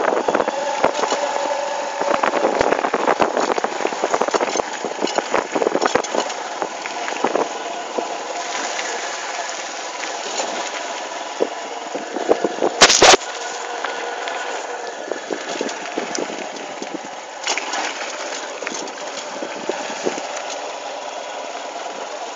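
Motorcycle engine running while riding, with frequent knocks and rattles throughout and one loud sharp knock about 13 seconds in.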